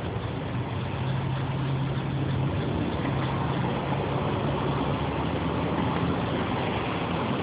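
Engine idling steadily: a low hum under a constant background noise.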